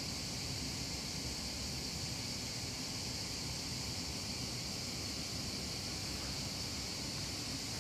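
Steady high-pitched hiss that holds at an even level throughout, without rhythm or breaks.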